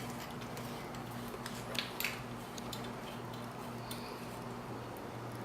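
Faint scattered metal clicks and light taps from parts and tools being handled while working on a motorcycle's rear exhaust and brake, over a steady low hum.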